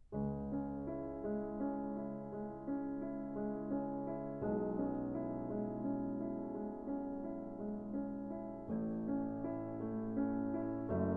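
Background music: gentle piano chords with a melody, changing chord at about four and a half and eight and a half seconds in.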